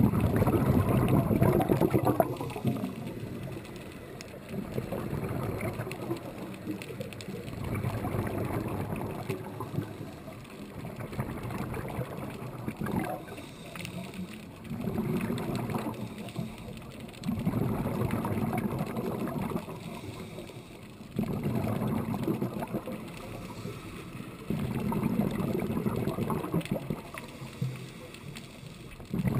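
Underwater bubbling from a diver's breathing through a scuba regulator, coming in bursts of about two seconds every three to four seconds with quieter gaps between breaths.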